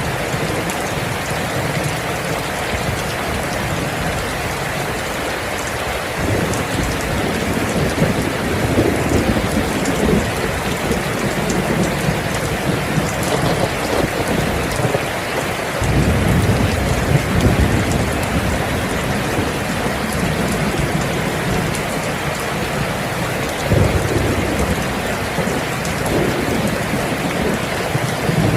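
Steady heavy rain falling, with thunder rumbling low several times. The strongest roll comes in suddenly just past the middle, with shorter rolls before it and near the end.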